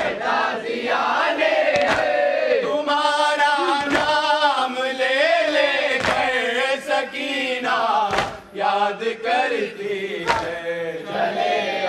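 A group of men chanting a nauha lament in unison, with hands striking chests (matam) roughly every two seconds.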